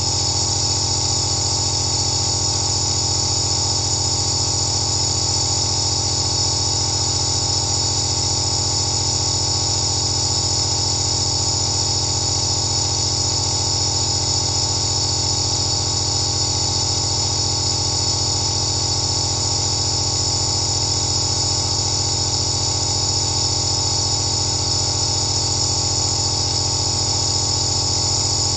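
Compressor nebulizer running steadily with its mask held to the face: a constant low motor hum under a high hiss of the misting air.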